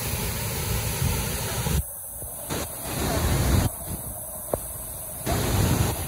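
Steady rushing noise of a waterfall, heaviest in the low end, that drops out suddenly twice for a second or so.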